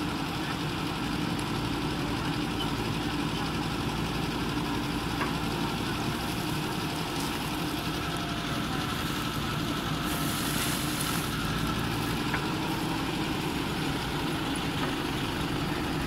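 JCB 3DX backhoe loader's diesel engine running steadily while the backhoe arm digs, with a brief hiss about ten seconds in.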